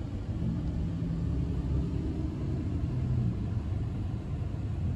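Steady low rumble of vehicle engines, with a faint hum and no sudden sounds.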